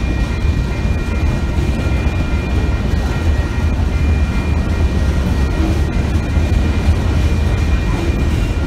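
Freight cars of a manifest train rolling past: a steady low rumble of steel wheels on the rails, with a faint thin high ringing over it.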